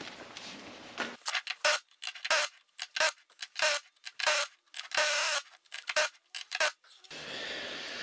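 Air chisel fired in short bursts through a deep socket to drive the wheel studs out of a 1997 F350 rear wheel hub: a run of brief metallic rattles and clinks with short gaps between them, starting about a second in and stopping near the end.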